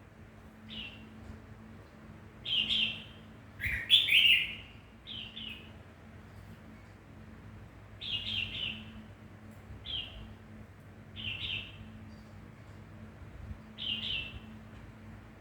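Pet songbird giving short, separate chirps every one to three seconds, the loudest a pair of calls about three and four seconds in. A faint steady low hum runs underneath.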